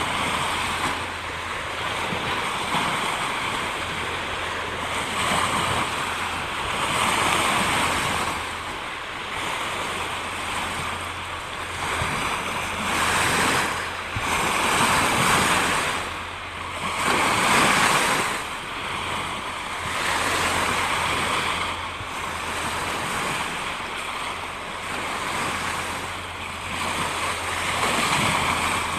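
Rushing noise of waves breaking, swelling and fading every few seconds over a faint steady low hum.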